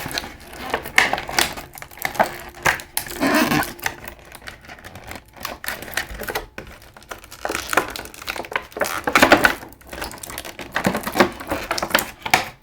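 Hard plastic action-figure parts and packaging being handled: a busy, irregular run of clicks, taps and light rustling.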